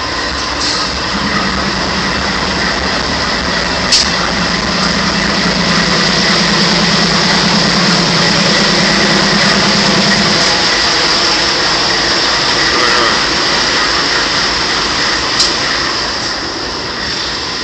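A large engine idling steadily under a constant hiss, with a low throb that fades out after about ten seconds. Two brief clicks sound, about four seconds in and near the end.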